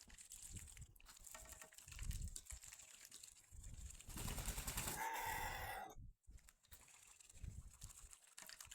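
Ducklings and chickens pecking at feed: many light, rapid clicks and taps of beaks. A louder, noisier sound comes about five seconds in and stops suddenly.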